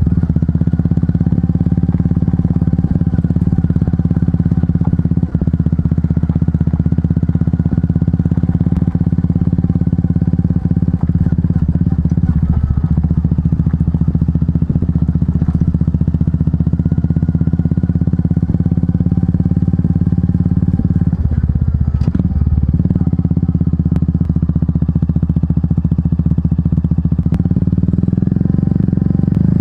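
Royal Enfield Meteor 350's single-cylinder engine running at a steady idle through its aftermarket exhaust, a low, even thump without revving.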